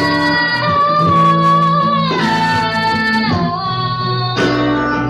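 A singer holding long, drawn-out notes that slide from one pitch to the next, over steady instrumental accompaniment with guitar.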